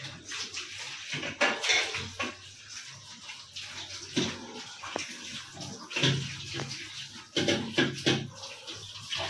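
Water splashing from a tap onto steel utensils, coming in irregular bursts, with sharp clinks of steel dishes.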